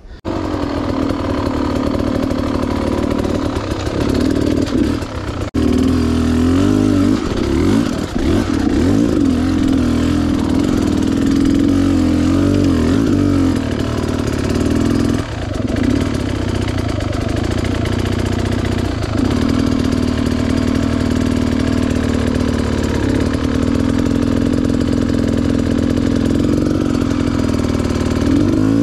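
Beta Xtrainer two-stroke dirt bike engine running under throttle while being ridden, its pitch rising and falling constantly as it revs up and back off.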